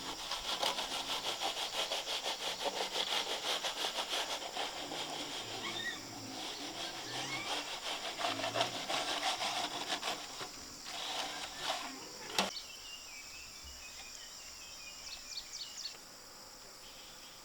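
Rapid, rhythmic rasping strokes of a tool working a rough surface for about ten seconds, fading out with a few weaker strokes, then one sharp knock. A steady high insect chirring runs underneath and is left on its own near the end.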